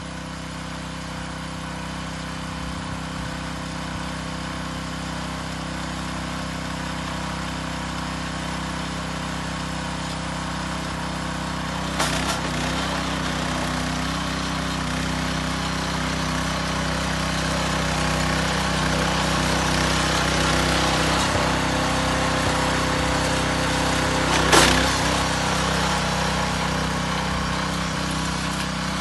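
Walk-behind rotary tiller's small engine running steadily under load as its tines churn the soil, growing gradually louder as it comes closer. Two sharp knocks stand out, about twelve seconds in and again near twenty-four seconds.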